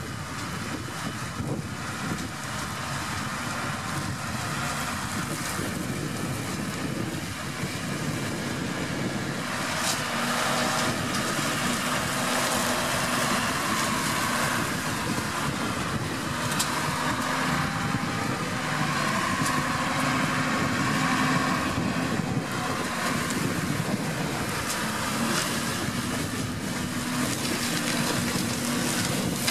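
New Holland TM140 tractor running with its Shelbourne arm-mounted flail head spinning and cutting roadside grass. The flail noise gets louder about ten seconds in, with a steady hum and a few sharp ticks.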